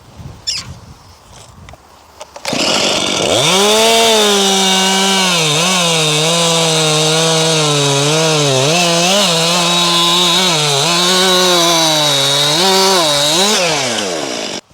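Stihl chainsaw revving up to full throttle about two and a half seconds in and cutting through a log. Its note dips again and again as the chain loads in the wood, then falls away and cuts off suddenly near the end.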